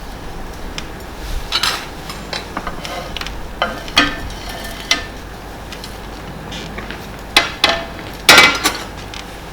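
Spoon and bowl clinking and knocking irregularly as broken meringue pieces are put into a bowl, with the loudest cluster of knocks near the end.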